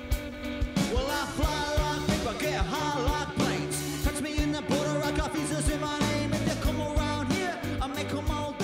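Background music: a rock song with a steady drum beat, and a singing voice that comes in about a second in.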